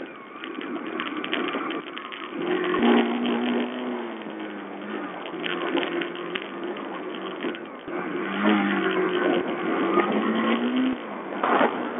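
Sherco 125 4T enduro motorcycle's single-cylinder four-stroke engine, heard from the saddle while riding a rough dirt trail: its note rises in pitch several times as the rider opens the throttle, under a constant rush of wind noise and the odd knock from the bumpy track, all thin and muffled through a cheap watch camera's microphone.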